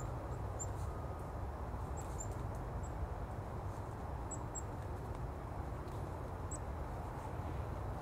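Outdoor ambience: a steady low rumble, with faint, very short, high-pitched bird notes scattered through it about seven times.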